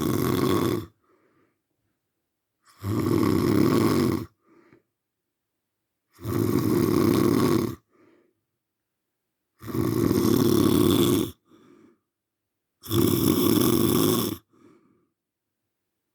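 Loud, regular snoring. Each long rasping snore lasts about a second and a half and comes about every three and a half seconds, followed by a short, faint breath sound.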